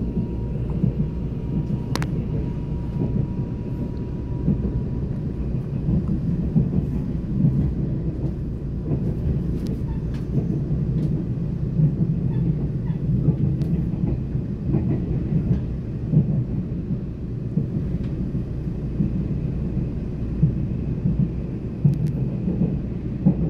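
Passenger train running, heard from inside the carriage: a steady low rumble of wheels on rails with irregular small knocks.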